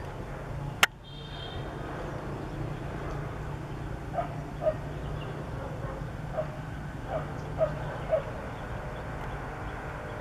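A sharp click about a second in, then six short barks, a dog barking at some distance, spread over a few seconds, over a steady low hum.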